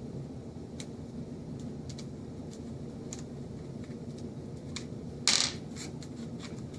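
Small metallic clicks and taps of a screwdriver and screw working in a GM steering column, with one louder, short clatter about five seconds in, over a steady low hum.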